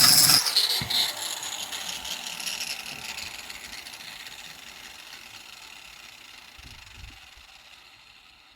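Angle grinder with a grinding disc finishing a brief grind of bare steel, cleaning a spot for the welder's earth clamp, then switched off; its disc whirs down, fading slowly over several seconds.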